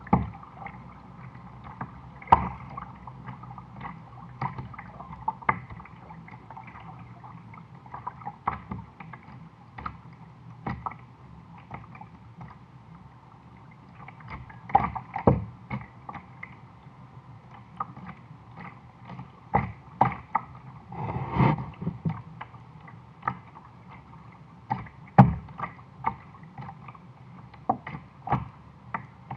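Plastic sit-on-top kayak under way on a river: water splashing and gurgling against the hull, with irregular knocks and splashes from paddling, and a longer splash about two thirds of the way through.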